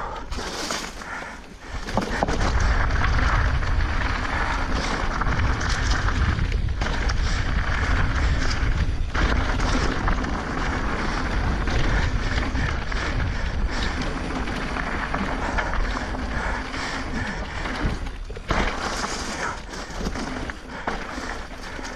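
Wind rumbling heavily on the microphone during fast travel down a dirt trail, with rough rolling and rattling noise. The rumble comes in sharply about two seconds in and eases near the end.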